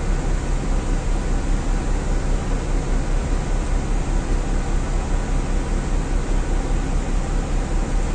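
Alexander Dennis Dart single-deck bus's rear-mounted diesel engine running steadily, heard from inside the rear of the passenger cabin as a low drone that holds its pitch.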